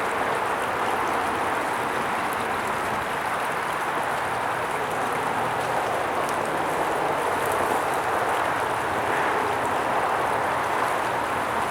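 Stream water flowing and babbling in a steady, even rush.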